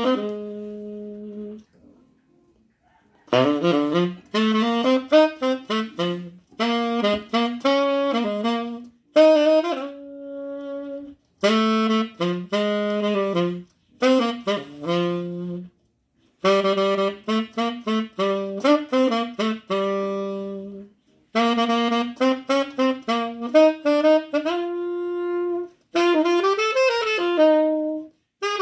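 Saxophone jazz melody from a CD, played back over Victor SX-211 bookshelf speakers driven by a Pioneer SA-9900 amplifier. The melody comes in phrases with short pauses between them.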